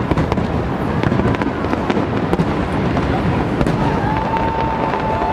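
Large aerial fireworks display: continuous booming rumble thick with crackling pops. A steady high tone comes in about four seconds in and holds.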